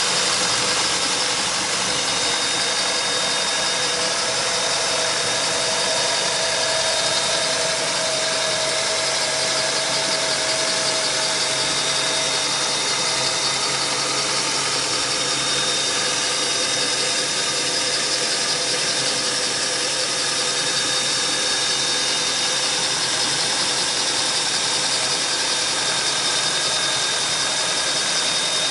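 1996 Maxum 210 SS boat engine running steadily, heard up close in the open engine compartment, with a steady high-pitched whine over the engine noise.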